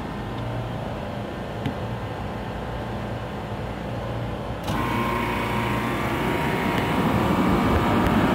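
Steady mechanical hum of rooftop refrigeration machinery. It grows louder and hissier about five seconds in.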